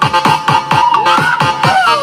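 Electronic dance music played loud through an Atomic Neo 8 950 W speaker on a sound test. A punchy kick drum thuds repeatedly, and a synth line slides up and then back down near the end.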